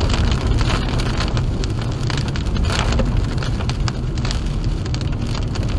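Road noise inside a moving car: a steady low rumble, with rain ticking and pattering against the car's body and glass.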